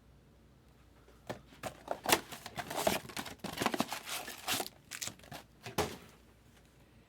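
Packaging being crinkled and handled: a string of sharp crackles and rustles lasting about five seconds, starting a second in and stopping near the end.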